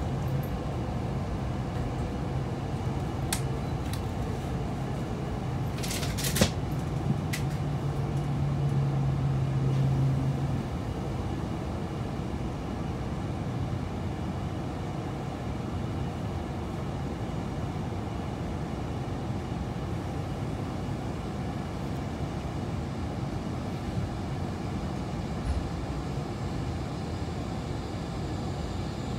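Onboard running noise of a Nishi-Kyushu Shinkansen N700S Kamome train approaching a station: a steady rumble of wheels and air. A low hum is heard for about the first ten seconds, and a few sharp clicks come about six seconds in.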